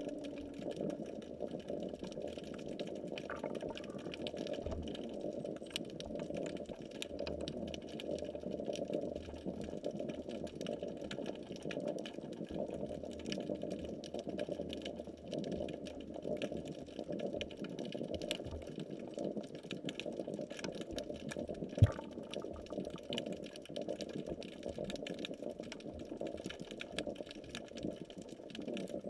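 Muffled, steady rushing of water heard through a GoPro's waterproof housing while submerged, with faint scattered clicks and one sharp knock about three quarters of the way through.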